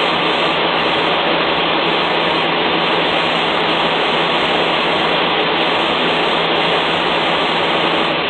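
Steady, loud drone of running engines, with a low hum underneath.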